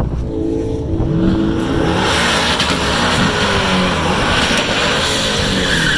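Car engine running, its pitch rising and falling as it is revved. From about two seconds in, a louder rush of noise joins it, from a car accelerating hard.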